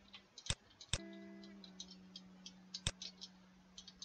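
About four sharp clicks and several fainter ticks from a computer mouse and keyboard, at an uneven pace. Under them, faint background music holds steady notes, with more joining about a second in.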